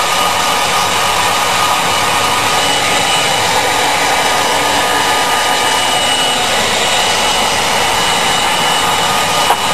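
Electric heat gun running steadily, its fan blowing hot air with a constant rushing sound and a faint steady whine.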